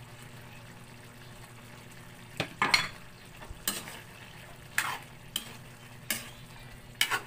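A ladle stirring a thick stew in an aluminium wok, knocking against the side of the pan about once a second from a couple of seconds in. A steady low hum runs underneath.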